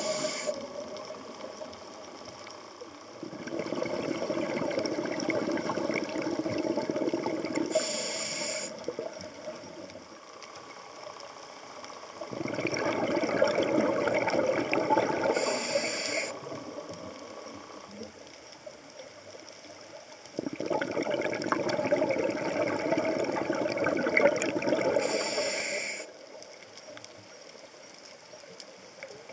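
A scuba diver breathing through a regulator underwater: three long gushes of exhaled bubbles, each ending in a short hiss, with quieter stretches between breaths.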